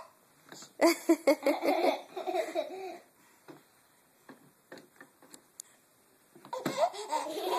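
Baby giggling in a quick run of short bursts for about two seconds, then a quiet stretch with a few faint clicks, and more giggling starting near the end.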